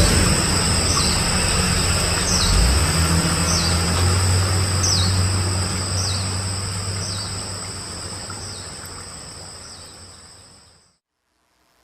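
Insects keep up a steady high-pitched drone, with a short falling chirp repeated about every 0.7 seconds over a low engine hum. The sound fades and then cuts out abruptly near the end.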